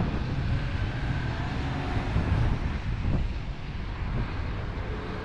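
Wind buffeting a handheld 360° camera's microphone, an uneven low rumble, mixed with road-traffic noise.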